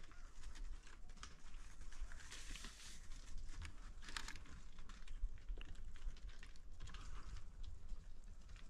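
Faint rustling and scattered light clicks from a hunter's movement and handling of a shotgun, over a steady low rumble on the microphone.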